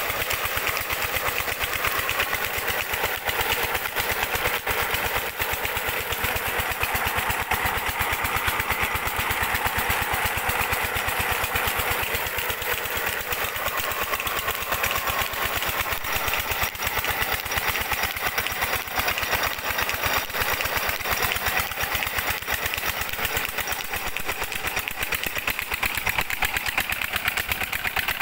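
12 hp Petter diesel engine running steadily with a rapid, even beat as it drives a tube well pump, with water pouring and splashing from the delivery pipe.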